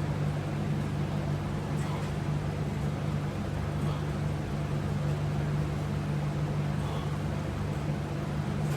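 A steady low hum with a light hiss over it, unchanging throughout, with faint soft ticks every couple of seconds.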